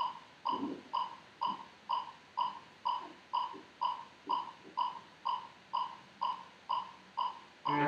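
Electronic metronome beeping evenly at about two beats a second (about 125 a minute) during a rest in cello practice, with a few faint low knocks between the beeps.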